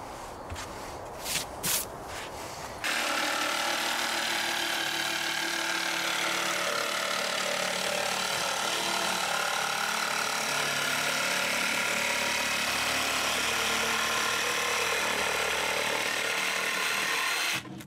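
Cordless jigsaw cutting a curve through 10 mm film-faced plywood, running steadily for about fifteen seconds. A few knocks come first, the saw starts about three seconds in, and it stops suddenly just before the end.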